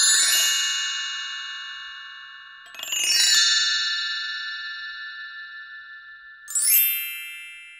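Three bright, bell-like chime flourishes, glockenspiel-like, one at the start, another about three seconds in and a last one near the end that sweeps upward, each ringing on and slowly fading.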